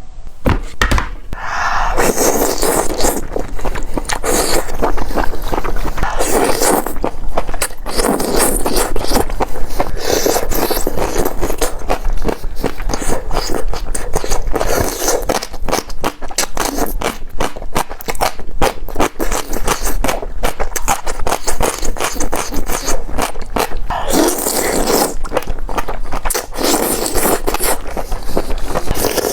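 Close-miked eating: biting and chewing with dense crackling and scraping, in louder bursts that come and go.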